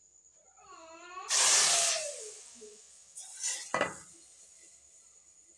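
Hot oil with red chilli powder poured as a tadka into a pot of nihari: a loud sizzle bursts in about a second in and dies away over the next second or so. A couple of sharp metal knocks from the pan follow near the middle.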